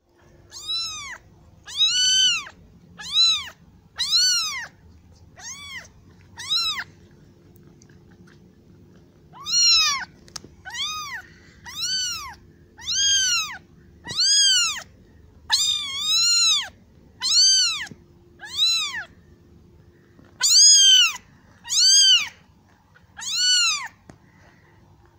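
Very young kitten meowing loudly and repeatedly, high calls that each rise and fall in pitch, about one a second with a short pause partway through. These are a kitten's distress calls for its mother.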